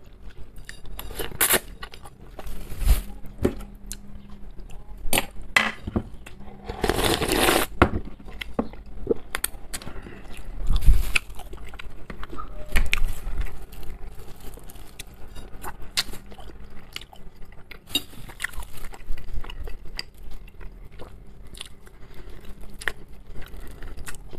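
Eating instant noodles with a metal fork from a ceramic plate: the fork clinks and scrapes on the plate again and again, with chewing and a few dull knocks.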